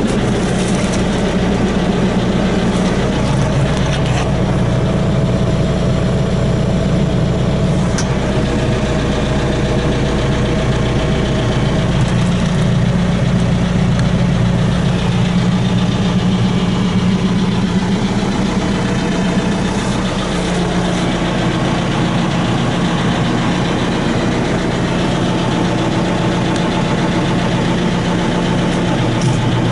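John Deere 6120E tractor's four-cylinder diesel engine idling steadily, heard from inside the cab.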